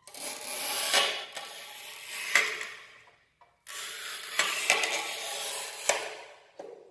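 Scoring wheel of a manual push tile cutter scratching across a narrow strip of tile: two long scraping passes of about three seconds each, with a short break between and a few clicks.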